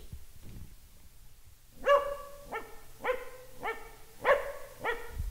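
Border Collie mix dog barking six times in an even rhythm, just under two barks a second, starting about two seconds in: a trained counting bark giving the answer to 2 × 3.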